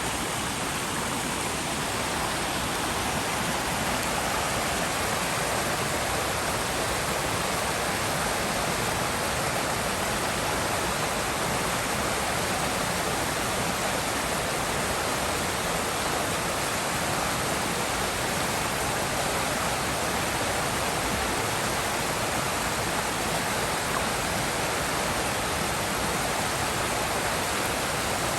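River water rushing and splashing over rocks in a steady, unbroken roar.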